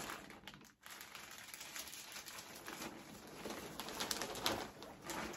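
Plastic bags and packaging crinkling and rustling as clothes are pulled out and handled. The crackle is soft at first and gets busier and louder in the last couple of seconds.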